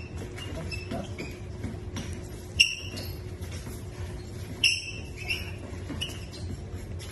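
Sneakers squeaking on a wooden gym floor as two people grapple: short, sharp squeaks, the loudest about two and a half and four and a half seconds in, with a few fainter ones after, over a low steady hum.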